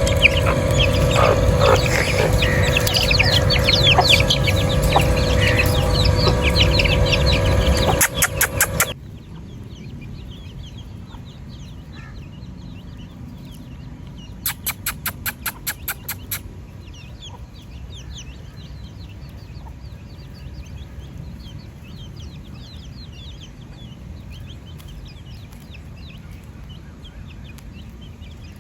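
A flock of chickens clucking and peeping, with many short high chirps. The sound is loud at first over a steady hum, then drops abruptly to a quieter flock about a third of the way in. Midway comes a quick run of about ten sharp clicks.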